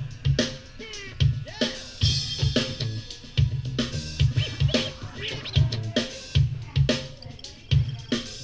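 Music with a steady drum-kit beat and bass, played through a JBL Go 2+ portable Bluetooth speaker as a sound test.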